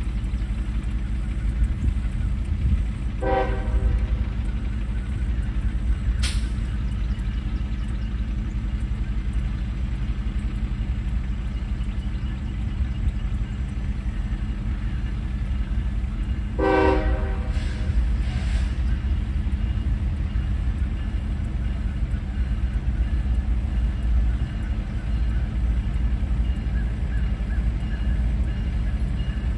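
Diesel locomotive horn giving two short toots, one about three seconds in and another about seventeen seconds in, over a steady low engine rumble.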